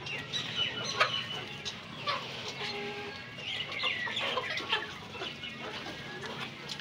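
A flock of chickens clucking and calling in short, scattered notes around a freshly filled hanging feeder.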